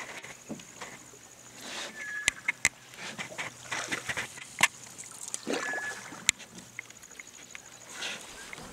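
Water swishing and rippling around a mokoro dugout canoe being poled through shallow reedy water, swelling every few seconds with the push of the pole. There are a few sharp knocks, and a brief high squeak comes with some of the swells.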